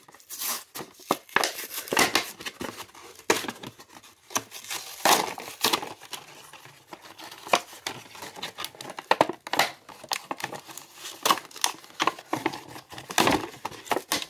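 Toy packaging being torn open by hand: a plastic blister pack crinkling and its cardboard backing card ripping, in a dense run of irregular crackles and tears.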